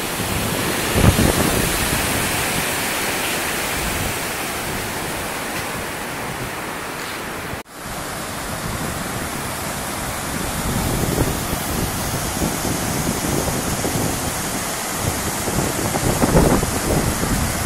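Water rushing steadily over a low concrete river weir, a continuous even roar of falling white water. It cuts out for an instant about eight seconds in.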